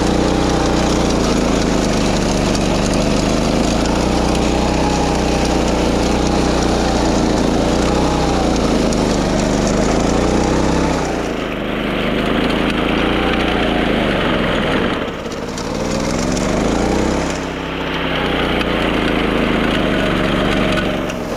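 Wing mower's small petrol engine running steadily at high speed while cutting grass. Its pitch sags and recovers about half-way through and twice more near the end.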